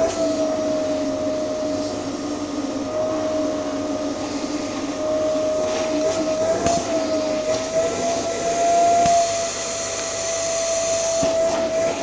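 Vacuum cleaner running, air drawn through its hose with the nozzle end partly blocked by a cat's face and paws. A steady tone in the sound wavers slightly in pitch, and the hiss turns brighter for a couple of seconds near the end.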